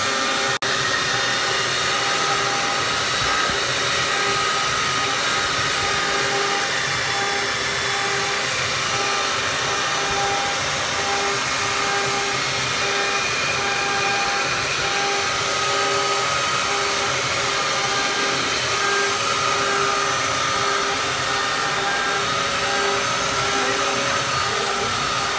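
Handheld electric belt sander running steadily, its motor giving a constant whine, as the belt sands across a wooden slab tabletop. The sound drops out for an instant about half a second in.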